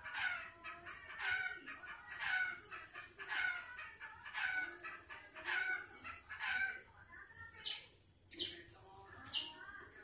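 Long-tailed shrike (black-headed 'blangkon' cendet) calling in breeding condition. It gives a run of harsh calls, each sliding down in pitch, about one a second, then near the end three short, sharp, high-pitched notes.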